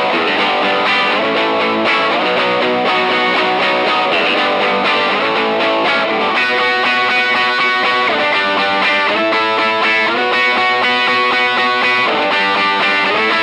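Overdriven electric guitar, a Telecaster-style guitar through an Archer overdrive pedal and a Fender Blues Junior amp, strummed through a chord progression in B. It switches between low power chords and the same chords voiced higher on the D, G and B strings, which sound brighter.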